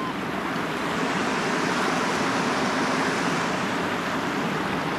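Steady rush of a fast river riffle, the water running over rocks.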